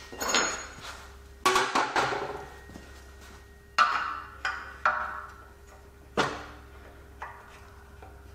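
Hammer blows on steel, about eight irregular strikes, some in quick succession, each leaving a short metallic ring: a ball joint splitter fork being hammered in to part the front lower arm's ball joint from the vertical link.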